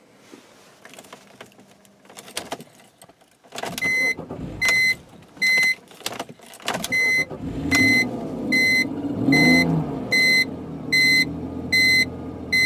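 BMW 325xi's 2.5-litre inline-six being restarted after stalling in the cold. A few clicks, then the starter cranks for a few seconds until the engine catches, revs up briefly and settles into a high cold idle. A warning chime beeps about once every 0.8 seconds through the cranking and running.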